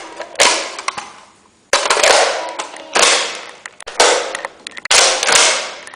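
A run of about six sharp, gunfire-like bangs, roughly one a second, each trailing off over about half a second.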